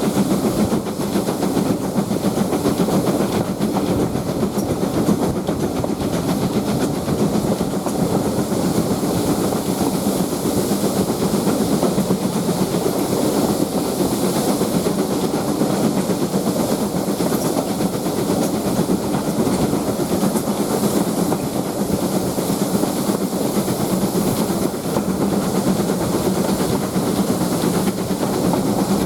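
Steam-hauled heritage passenger train in motion behind LMS Ivatt 2-6-2 tank engine No 41313: a steady rumble and clatter of wheels on the track, with steam hissing throughout.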